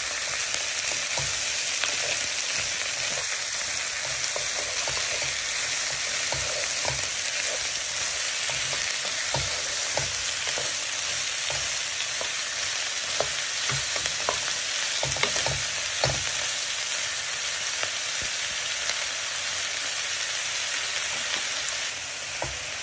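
Chopped spring onions sizzling in hot sesame oil in a non-stick pan, stirred with a wooden spatula that scrapes and knocks against the pan now and then, while they soften.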